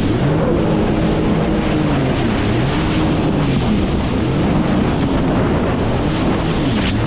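Jet ski engine running hard at speed, its pitch rising and falling every second or so as the revs surge, under heavy wind on the microphone.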